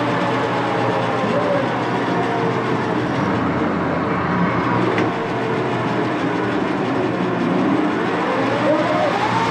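1941 Axelson gear-head lathe running under power, its gearbox giving a steady mechanical rumble and whine. A higher tone rises near the end.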